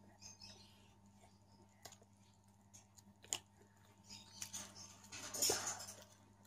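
Quiet eating sounds: boiled artichoke being handled and chewed, with scattered small clicks and a louder rustling scrape about five and a half seconds in.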